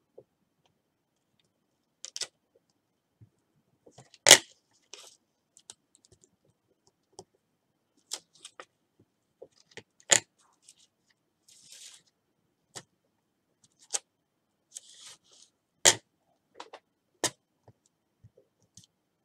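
Handling of card-making materials and tools on a tabletop: scattered knocks and taps, four of them sharper and louder, with a few short rustles of paper.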